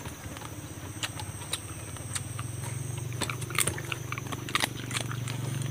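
A person chewing and tearing roasted chicken, with scattered crackly clicks that come thicker in the second half. A steady low hum runs underneath.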